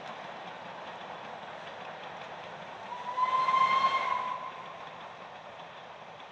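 A narrow-gauge steam locomotive's whistle gives one blast of just over a second, about three seconds in, over the steady noise of the train running.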